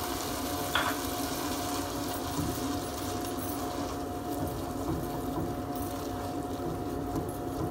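Masala paste sizzling and frying in a pot while a silicone spatula stirs yogurt into it, with a steady hum underneath.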